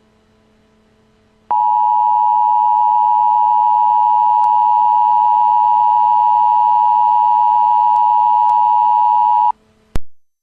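Emergency Alert System attention signal: a loud, steady two-tone alert tone that starts about a second and a half in, holds for about eight seconds, then cuts off, followed by a short click. It announces an emergency alert, here a tornado warning.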